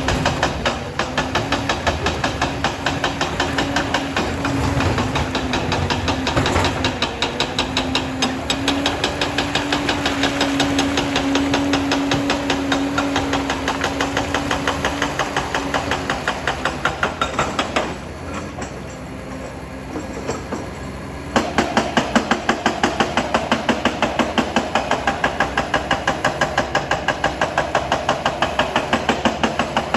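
Liebherr PR 746 crawler dozer working: its diesel engine runs steadily under a fast, even clanking of the steel tracks. About two-thirds of the way through the sound drops for a few seconds, then comes back louder, with the clanks at about two to three a second.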